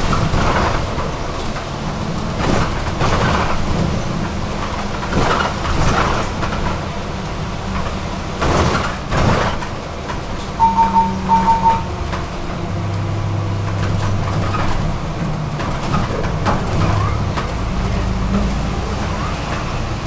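Interior of a city bus on the move: the engine drones low and shifts in pitch as the bus changes speed, with cabin rattles and road noise throughout. Two short high beeps sound about halfway through.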